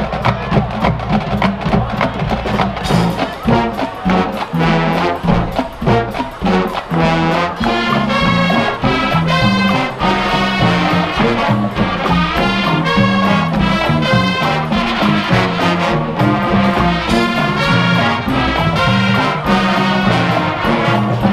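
High school marching band playing live: a full brass section with drums and percussion.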